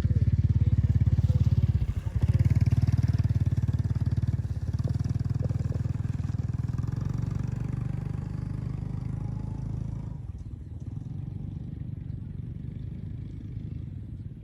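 A small engine running steadily with a rapid even firing beat, growing fainter after about ten seconds.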